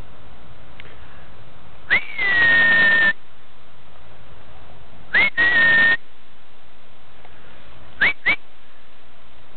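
Whistling: a short rising note followed by a long held note, repeated shorter a few seconds later, then two quick rising chirps near the end, over steady background noise.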